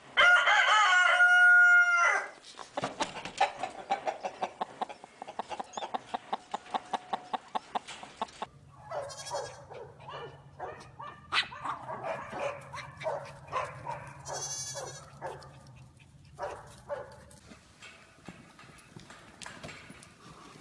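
A rooster crows once, loudly, over the first two seconds. A rapid string of short, evenly repeated animal calls follows, about three to four a second, and then a looser mix of short animal calls over a low hum.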